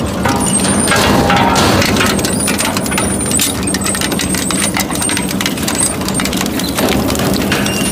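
Twin-shaft shredder's rotating cutter blades gripping and breaking up a pink rack: rapid, irregular cracking and snapping over the steady hum of the machine.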